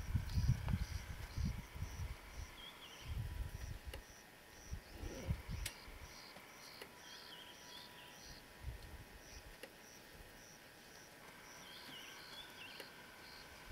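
Faint outdoor bush ambience: a high chirping repeats about three times a second, with a short pause past the middle, and a few short whistled bird calls. Low rumbles of wind or handling noise come in the first two seconds.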